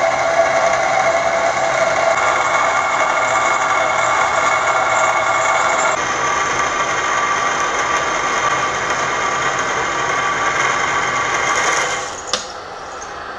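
Bridgeport milling machine drilling a flywheel with an F-size twist drill under power quill feed: a steady machine run with the drill cutting. Near the end the sound drops to a quieter run and a single sharp click is heard.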